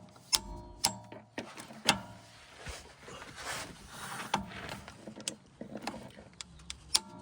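Metal hand tools and parts clinking and knocking in a scattered series of sharp strikes, a few ringing briefly.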